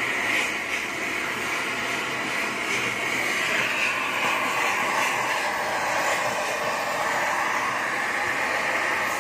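Gas torch flame hissing steadily while melting gold.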